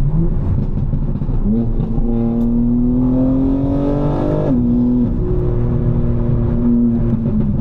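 Tuned BMW M4's twin-turbo S58 straight-six accelerating hard through a gear, its pitch climbing steadily for about three seconds, then dropping suddenly at an upshift about four and a half seconds in, after which it runs steadily.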